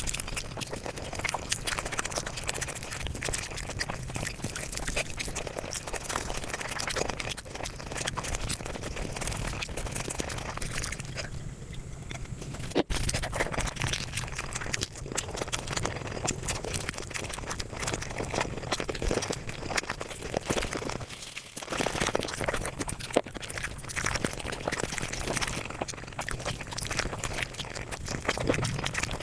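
Eating and chewing sounds sped up about five times, forming a dense, fast run of chewing, smacking and crunching clicks, with a couple of brief dips.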